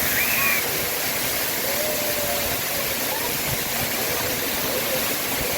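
Artificial waterfall: a steady, even rush of falling water, with faint distant voices of people under it.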